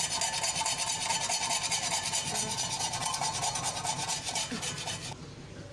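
Kitchen knife blade scraping burnt-on black residue, softened by baking soda and vinegar, off the metal surface of a tawa in rapid back-and-forth strokes. The scraping stops about five seconds in.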